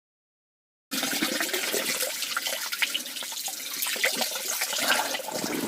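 Water splashing and sloshing in an ice fishing hole as an arm works in it, with small knocks and drips; it starts about a second in.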